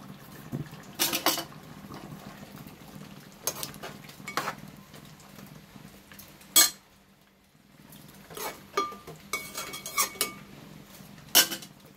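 Metal spoon stirring a thick curry in an aluminium pot, clinking and scraping against the pot at irregular moments every second or two.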